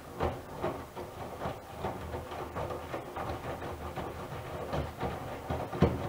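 Miele W1 Classic WDB030 front-loading washing machine tumbling wet laundry on a 90 °C cottons wash with extra water (Water Plus): the drum turns with a low hum, and laundry and water swish as they fall, about two or three times a second. There is one louder thump near the end.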